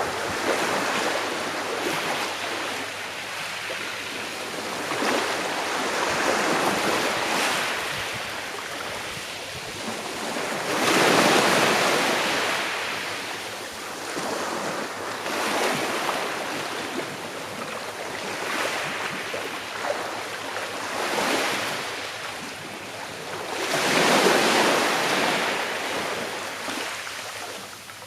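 Sea waves washing onto a shore in slow surges, each swelling and receding over a few seconds, the biggest about eleven and twenty-four seconds in.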